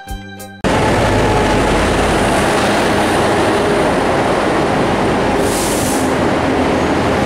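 Guitar music stops abruptly under a second in, giving way to the loud, steady running noise of a moving vehicle, with a short hiss about five and a half seconds in.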